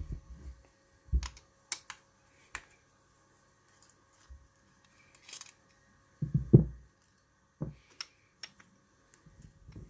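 Irregular small metallic clicks and taps from a hex key working the bolts of a lathe compound slide and the parts being handled, with a cluster of heavier knocks about six and a half seconds in as the assembly is set down and shifted on the cloth.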